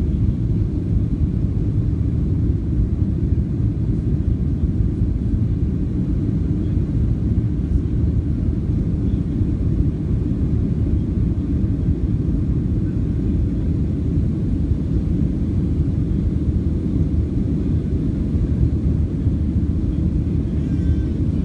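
Steady low rumble of a Boeing 737-700's CFM56-7B turbofan engines and rushing airflow, heard inside the passenger cabin during the climb after takeoff.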